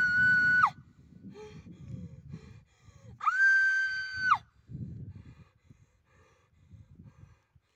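A young woman's high-pitched scream, held at one pitch and dropping off at the end, is cut off less than a second in; a second held scream of just over a second follows about three seconds in. A low rumble runs underneath and fades toward the end.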